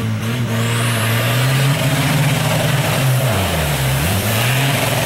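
Off-road buggy engine revving hard as it drives through a deep mud pool, the revs climbing, sagging about three and a half seconds in and picking up again, with the splash and spray of muddy water.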